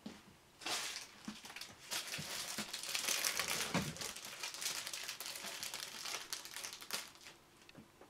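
Thin plastic bread bag crinkling and rustling as it is handled and a piece of bread is pulled out of it.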